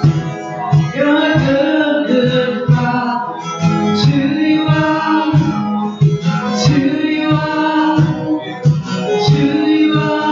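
A live song: acoustic guitar strummed to a steady beat, with a hand-drum accompaniment. A singing voice comes in about a second in.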